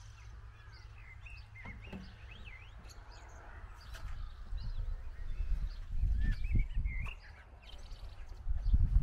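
Small birds chirping and calling, short rising and falling notes scattered throughout. From about four seconds in, low rumbling bursts of noise on the microphone grow louder and become the loudest sound near the end.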